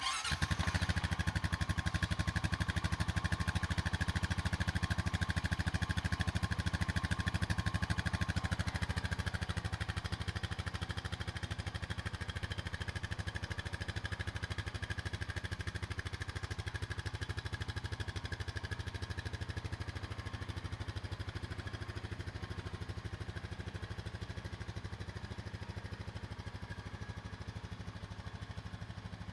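Honda Foreman 520 ATV's single-cylinder 518 cc engine idling steadily. It is a little louder for the first eight or nine seconds, then settles.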